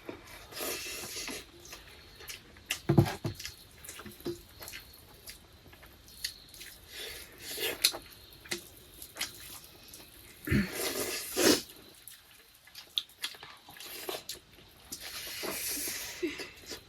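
Eating sounds from a mukbang of rice and egg curry: scattered wet mouth smacks and chewing clicks, with a few louder smacks.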